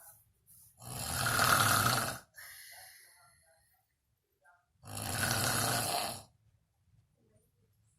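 A sleeping person snoring: two long snores about four seconds apart, the first trailing off into a fainter breath.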